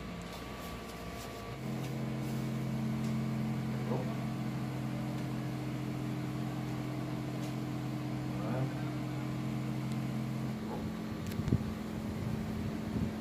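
Corded handheld electric massager running with a steady motor hum. It switches on about one and a half seconds in and cuts off about three seconds before the end, leaving a fainter hum and a few knocks.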